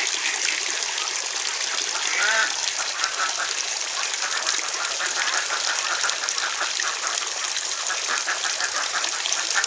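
Ducks quacking over a steady rush of running water: a call about two seconds in, then a long run of quick, repeated quacks through the second half.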